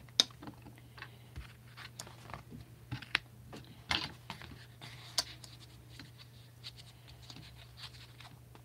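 Scattered light clicks, taps and rustles of hands handling a sheet of craft foam on a tabletop, over a faint steady low hum.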